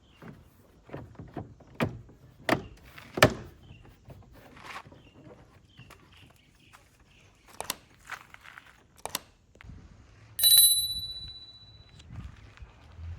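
A series of sharp knocks and clicks, loudest in the first few seconds, then a single bright metallic ring about ten seconds in that fades out over a second or so.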